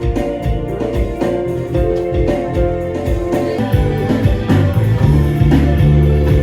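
Background music led by plucked guitar over a low bass.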